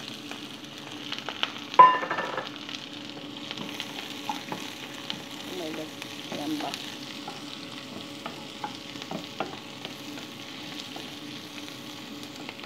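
Diced onions sizzling as they fry in a granite-coated pan, with small scrapes and clicks as they are stirred. About two seconds in, one loud clank that rings briefly.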